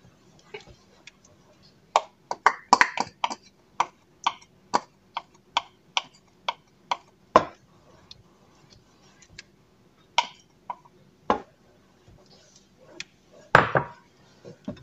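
Small wire whisk clinking against a glass bowl while beating egg yolks: a quick run of sharp taps, two to three a second, then a few scattered knocks near the end.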